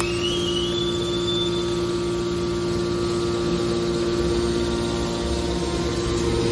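Hydraulic scrap can baler's power unit running with a steady mechanical hum. A whine rises in pitch near the start and holds for about a second.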